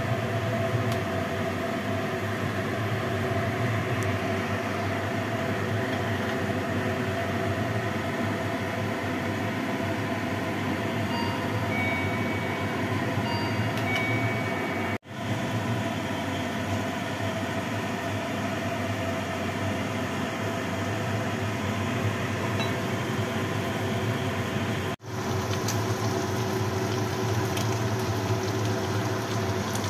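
Steady stovetop hum and hiss from a pot of soup heating on a gas burner, breaking off for an instant twice.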